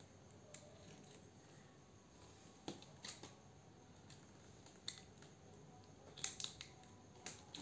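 Mostly near silence, with a few faint, scattered plastic clicks and taps as a battery pack is handled and fitted onto a 12V cordless screwdriver.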